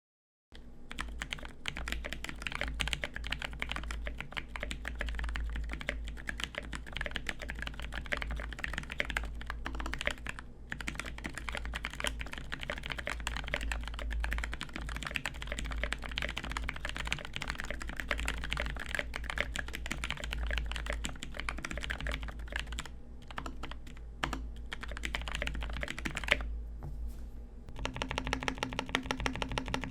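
Continuous typing on a Think6.5 polycarbonate-case mechanical keyboard with lubed T1 tactile switches fitted with Cherry tops and GMK keycaps: a dense stream of keystroke clacks starting about half a second in, broken by a few short pauses.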